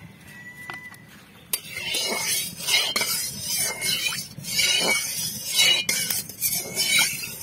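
Metal spatula scraping around the inside of a metal kadai, spreading oil across the pan in repeated strokes that begin about a second and a half in.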